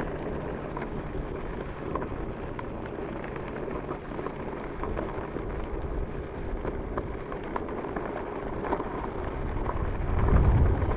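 Narrow tyres rolling over a dirt road, a steady rumble with many small gravel clicks. Wind rumble on the microphone grows louder near the end.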